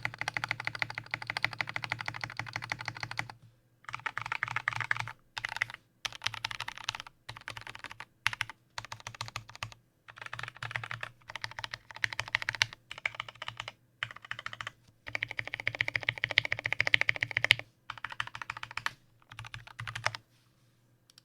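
Typing on a custom 60% mechanical keyboard with lubed and filmed Gateron Brown switches, an aluminium plate and a zebrawood case: fast runs of keystrokes lasting a second or so, separated by short pauses. The typing stops near the end.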